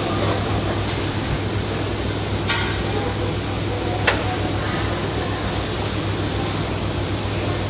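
A machine running steadily with a low hum and a noisy whir, with a few light clinks and one sharp click about four seconds in.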